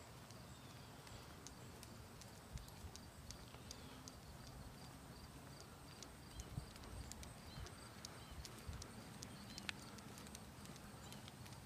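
Faint footsteps of a person and a dog walking on a concrete sidewalk: scattered light clicks and soft thuds.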